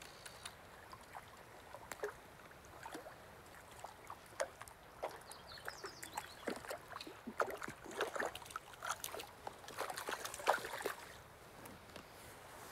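A hooked trout splashing and thrashing at the water's surface as it is played in close and landed, in a series of short irregular splashes over the steady wash of the river.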